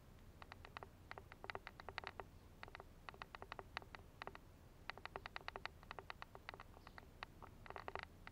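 Faint, irregular runs of small sharp clicks, several a second, from a kitten moving its head and paws on a woven plastic sack.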